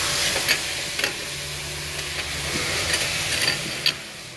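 A few light metal clicks as an aluminium wheel spacer is handled against the rear hub and slid over the wheel studs, over a steady hiss of background noise.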